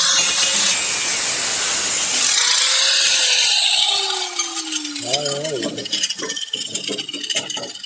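Electric grinder with a cutting disc slicing through rusted sheet-steel trunk floor pan, then switched off about four seconds in, its whine falling as it spins down. Irregular knocks and clatter of the metal being worked follow.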